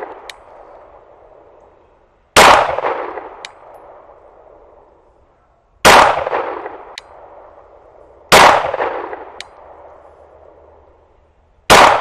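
Shadow Systems MR920 Combat 9mm pistol firing four slow, aimed single shots about three seconds apart, each ringing out and fading over a second or so. A faint short tick follows each shot about a second later.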